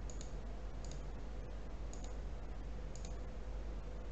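Computer mouse clicking about four times, roughly once a second, as moves are stepped through on a chess program, over a low steady electrical hum.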